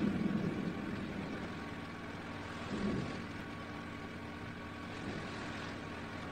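Anak Krakatau volcano erupting: a steady, rushing rumble of the eruption, swelling briefly at the start and again about three seconds in.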